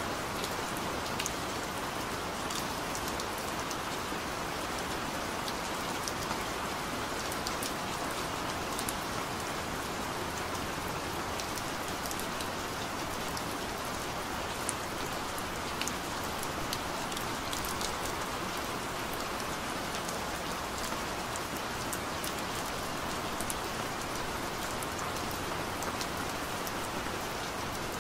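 Steady rain falling, an even hiss with scattered sharp drop ticks through it; no thunder.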